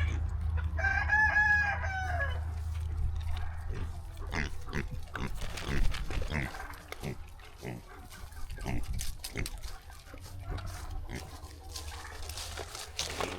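A rooster crows once about a second in, a single arching call lasting about a second and a half. It is followed by a run of irregular short crunches and clicks from a Kune Kune pig chewing its feed close by.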